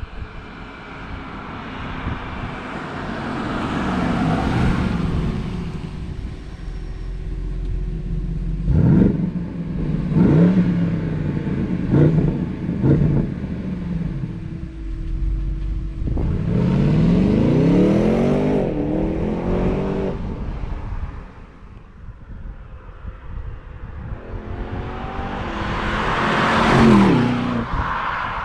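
BMW 750i xDrive's twin-turbo V8 engine and exhaust. It revs sharply four times in quick succession, then runs up in a long rising pull. Near the end it swells to its loudest and falls away, as when the car drives past.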